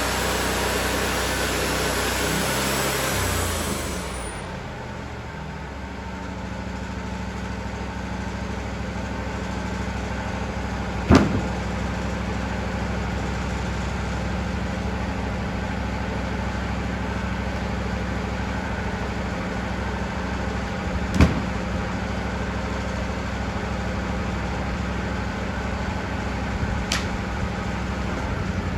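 Wood-Mizer LT40 band sawmill running. A loud hiss stops about four seconds in as the engine note steps down, then the engine runs on steadily, with two sharp knocks about ten seconds apart and a fainter click later.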